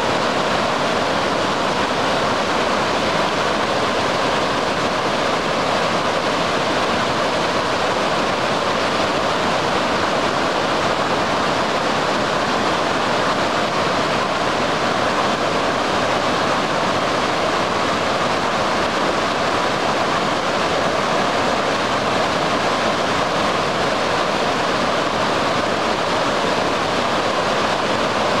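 Flash-flooded Taughannock Creek: muddy floodwater rushing and churning over rocky rapids, a loud, steady rush of water with no break.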